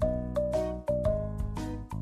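Upbeat, bouncy background music: a plucked or mallet-like melody stepping through short notes, about three to four a second, over a steady bass and beat.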